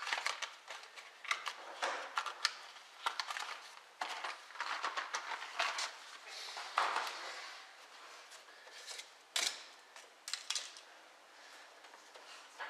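Irregular light clicks, taps and rustles of hands handling a small cardboard box of spark plugs and rummaging in a car trunk.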